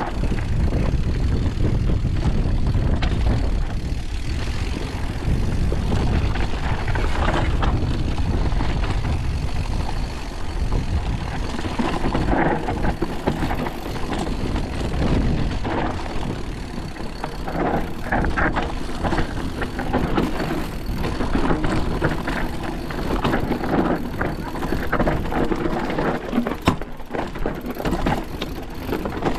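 Scott Ransom full-suspension mountain bike ridden fast down a rocky trail: a steady low rumble of tyres and wind, with many rattling clicks and knocks as the bike goes over stones.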